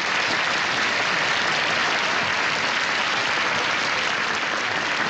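Large banquet audience applauding, a dense, steady clapping.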